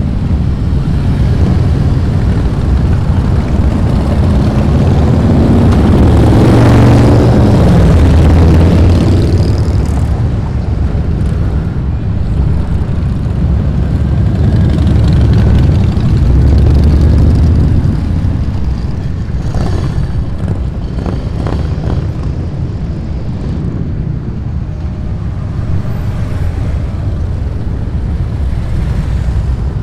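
Motorcycle engines running on a street, one swelling loudest as it passes about a quarter of the way in and another around the middle, easing to a steadier, lower engine noise in the second half.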